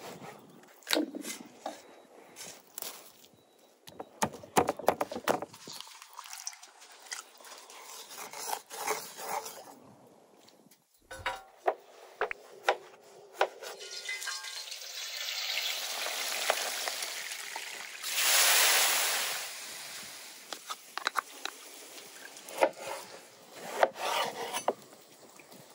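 A large kitchen knife cutting through raw fish and citrus on a wooden cutting board, with many sharp knocks of the blade against the board. Around the middle, a noisy hiss swells for several seconds and is loudest near its end.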